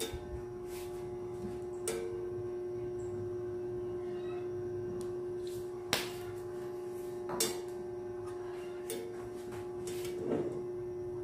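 A steady hum with a handful of short clicks and knocks scattered through it.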